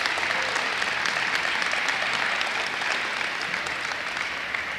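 Audience applauding, a dense patter of many hands clapping that slowly dies down toward the end.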